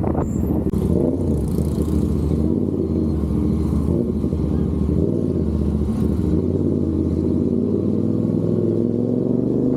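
CFMOTO 450SR's parallel-twin engine and exhaust running steadily while the motorcycle is ridden, its pitch shifting a little with the throttle.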